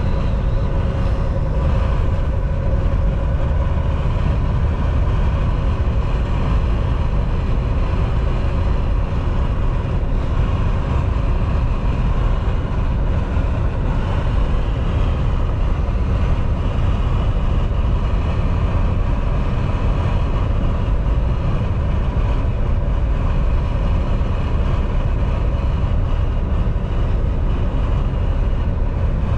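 Inside the cab of a Volvo semi-truck cruising at highway speed: a steady, loud low drone from the diesel engine and tyres on the road, with faint steady hum tones above it.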